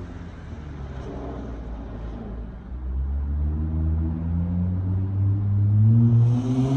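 Dodge Charger SXT's V6 exhaust through Flowmaster Super 10 mufflers, running low and steady off the throttle, then rising in pitch and getting louder as the car accelerates from about three seconds in, loudest near the end.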